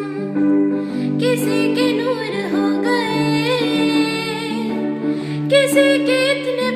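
Music: a slow melody with vibrato, sung or played, over held low accompaniment notes that change about once a second.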